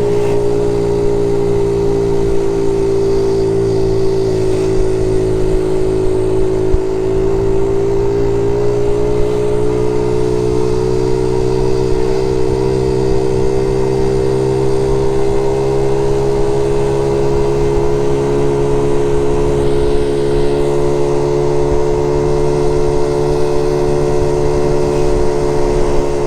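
Honda Z50 J1 Monkey's small single-cylinder four-stroke engine running steadily under way. Its note dips slightly a few seconds in, then climbs slowly. It runs evenly with no misfire, which the owner puts down to a newly replaced ignition coil.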